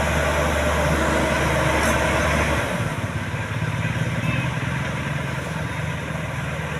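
Combine harvester engine running steadily, its note changing and easing off slightly about two and a half seconds in.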